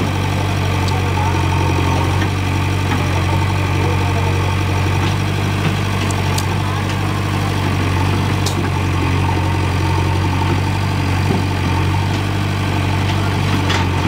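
JCB backhoe loader's diesel engine idling steadily, with a few faint clicks.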